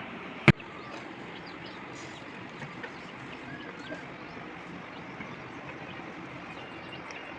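Steady outdoor background noise with a few faint bird chirps, and one sharp loud click about half a second in.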